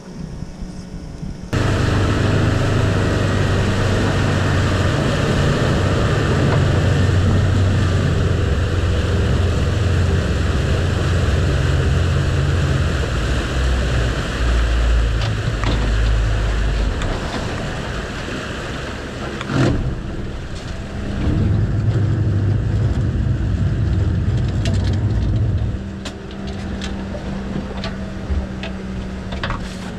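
Outboard motors driving a small fishing boat under way, with wind and water rushing along the hull. About 26 seconds in the engine drops back to a quieter, steady low hum as the boat slows.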